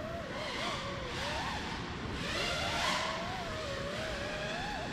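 FPV quadcopter's motors and propellers whining, the pitch wavering up and down as the throttle changes, with a louder rushing swell about halfway through.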